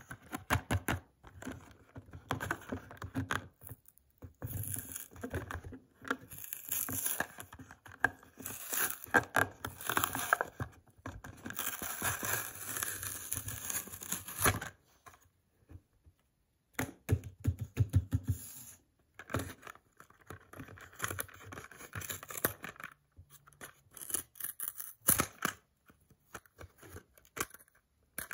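Stiff plastic blister pack and cardboard backing card of a Hot Wheels toy car crackling and scraping as fingers grip and turn it, in irregular bursts with short pauses.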